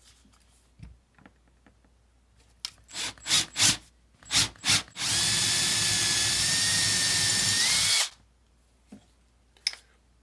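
Milwaukee cordless drill boring a hole into a wooden mounting block. A few short trigger pulls come first, then about three seconds of steady drilling with a constant whine that rises just before it stops.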